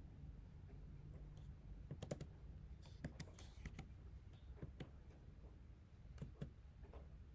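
Faint, scattered clicks and taps over quiet room tone, with a brief rustle about three seconds in.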